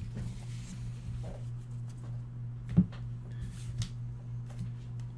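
Trading cards being handled and gathered on a desk mat: soft rustles and small taps, with one sharper knock nearly three seconds in, over a steady low hum.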